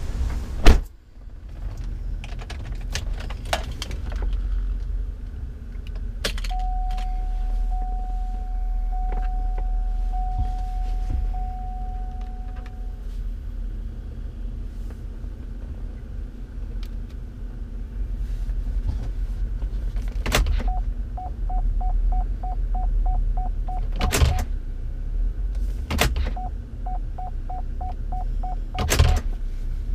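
Cabin of a 2012 Chevrolet Avalanche with the engine idling low, and a heavy thunk near the start. After several seconds a steady electronic chime tone sounds for about six seconds. Later come two runs of quick beeps at the same pitch, about three or four a second, with a few sharp clicks between them.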